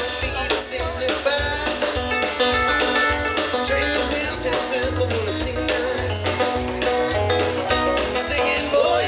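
Live band music: strummed acoustic guitars, electric guitar and drums, with a singer.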